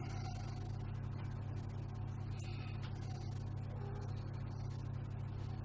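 Steady low electrical hum, with faint small clicks and rustles over it.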